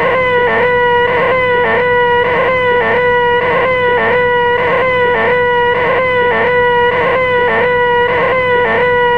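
The 'most annoying sound in the world': a man's held, nasal, high-pitched vocal screech, looped continuously, with a short break and pitch dip about twice a second.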